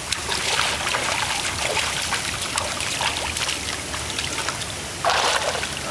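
Pool water churning in a steady rush, with scattered small splashes and a louder splash about five seconds in.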